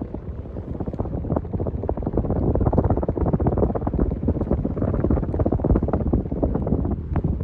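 Strong airflow from a Hunter Original ceiling fan buffeting the microphone: a loud, rough wind rumble with no steady motor tone.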